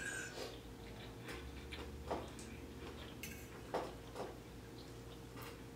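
Faint eating sounds: a handful of scattered soft clicks and taps.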